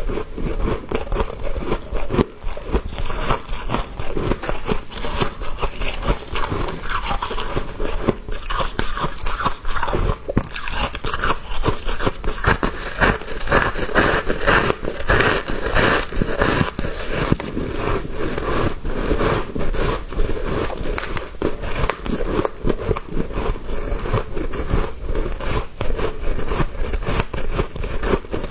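Close-up chewing of small, soft, powdery ice chunks: a steady stream of rapid, crisp crunches as the ice is bitten and ground between the teeth.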